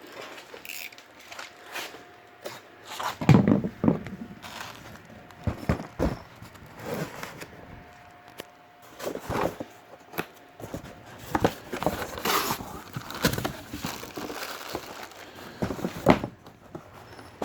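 Cardboard boxes and plastic bags of parts being handled and opened: irregular rustling, crinkling and tearing, with scattered knocks as pieces are moved and set down, the loudest about three seconds in and again around twelve seconds.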